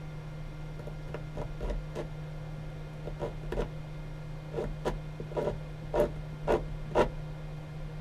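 Short scratching and tapping strokes against the underside of a wooden cabinet as hole positions are marked. They are sparse at first, then come about two a second, and the loudest three fall near the end. A steady low hum runs underneath.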